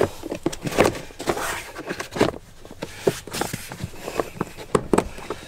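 Mopar all-weather rubber floor mat being laid into a rear footwell and pressed into place by hand: scattered soft knocks, taps and rubbing of the rubber mat and hands against the floor.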